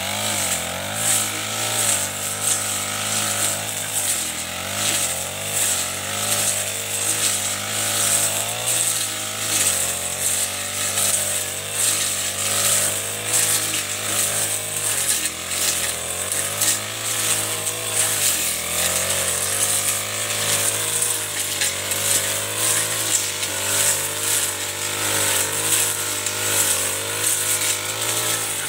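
Chinese-made Honda-type four-stroke backpack brush cutter running under load, its engine note rising and dipping every second or two as the blade sweeps through tall grass and weeds, with repeated swishes of cut stems.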